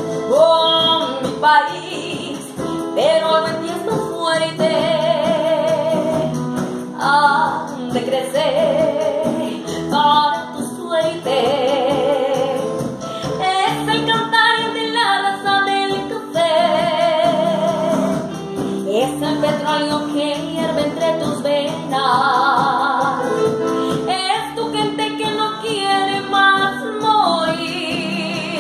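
A woman sings a Spanish-language song over instrumental accompaniment, holding long notes with a strong vibrato.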